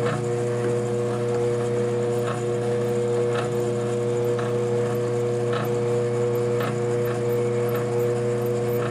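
1957 Diamond horizontal milling machine running steadily while its cutter cuts a gear tooth: a constant machine hum with a short sharper tick about once a second.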